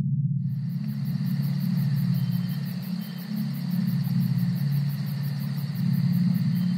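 Low, steady droning hum under a high, rhythmic chirping of about four pulses a second, like night insects.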